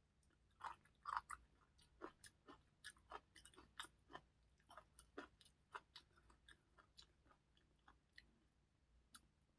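Close-miked eating: wet mouth clicks and smacks of chewing, irregular, several a second, thinning out toward the end.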